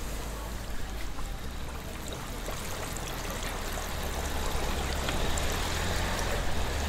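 Twisted doughnuts deep-frying in hot oil: a steady sizzle with small crackles, getting louder in the second half, over a low steady hum.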